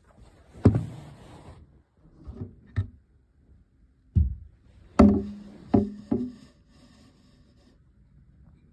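Handling knocks and rubbing against a cockroach enclosure: about seven bumps spread over the first six seconds, the loudest a little under a second in and around five seconds in, a few followed by a short low ring.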